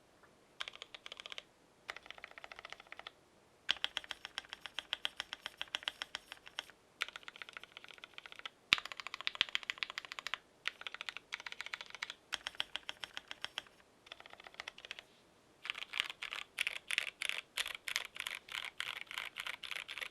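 Typing on a GMMK Pro mechanical keyboard with lubed Gateron Yellow linear switches, a polycarbonate plate and GPBT keycaps. Fast runs of keystrokes come in bursts of a second or several, broken by short pauses, with one sharper single strike about halfway through. A longer continuous burst runs through the last few seconds.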